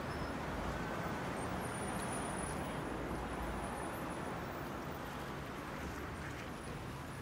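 Steady road traffic noise, easing off slowly toward the end.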